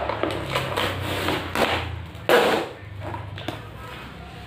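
Cardboard boxes and plastic wrap being handled: rustling and crinkling with scattered knocks, and one loud sharp knock a little over two seconds in.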